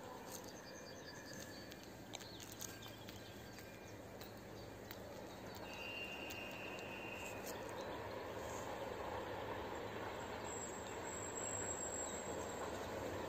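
Distant ČSD 'Bardotka' diesel locomotive approaching along the line, its low engine drone slowly growing louder over open-air ambience. A brief high steady note sounds about six seconds in.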